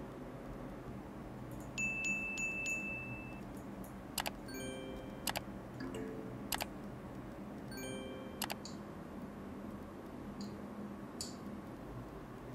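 Light, bright metallic chiming: a held ringing note about two seconds in, then several short chiming strikes over the next few seconds, over a low background hiss.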